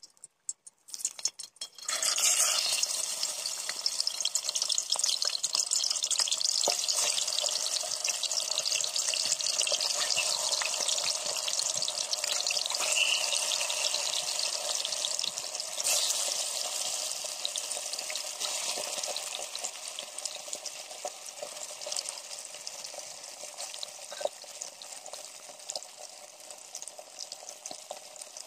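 Turmeric-coated small whole fish frying in hot oil in a kadai: a sudden loud sizzle starts about two seconds in as the first fish goes into the oil, then a dense crackling spatter. It flares again about halfway as more fish are added, then slowly dies down.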